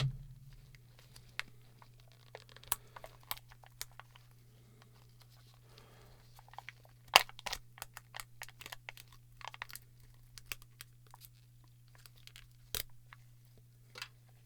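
An empty ink cartridge's plastic housing being pried and cracked open with a tool: irregular clicks, crunches and small cracks, with the loudest snap about seven seconds in. A faint steady low hum runs underneath.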